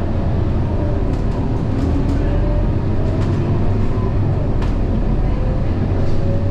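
Steady low engine and road rumble inside a moving city bus, with a faint whine that slowly rises and falls in pitch and a few light rattles from the cabin.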